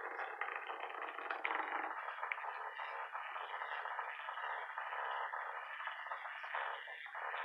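Hexbug vibrating toy bug running on the floor, a steady buzzing rattle that goes on without a break.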